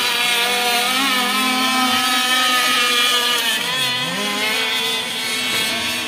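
Several radio-controlled racing boats running flat out across the water, their small motors making an overlapping high buzz. About four seconds in, one motor's pitch dips and climbs again as it backs off and speeds up.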